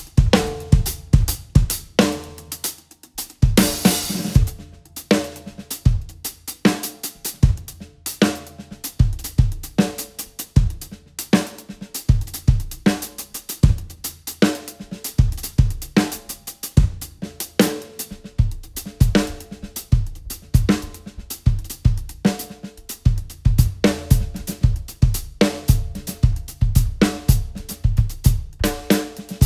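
Acoustic DW drum kit played solo: rapid snare and tom strokes with hi-hat and cymbal hits over bass drum. A cymbal crash washes out about four seconds in, and the bass drum strokes come thicker and faster in the second half.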